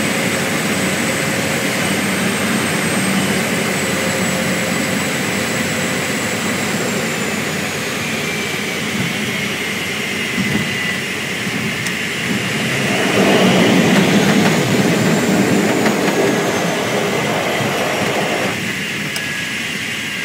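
Floatplane's propeller engine running steadily, heard from inside the cabin as the plane moves on the water. About two-thirds of the way in, it grows louder and fuller for some five seconds, then drops back.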